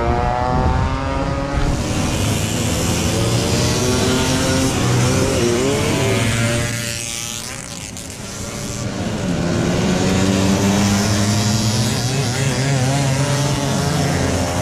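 Several small 50 cc two-stroke race motorcycles revving hard as they ride past, their engine pitches rising and falling over one another. The sound dips about halfway through, then builds again as more bikes come by.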